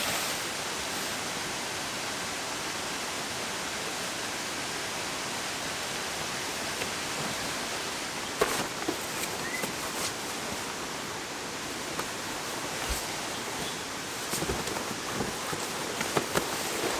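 Steady rush of a waterfall's falling water, with a few short knocks and rustles from about eight seconds in, more of them near the end.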